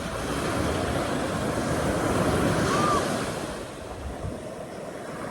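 Sleet falling in the wind: a steady rushing hiss that swells over the first few seconds and then eases off, with wind buffeting the microphone.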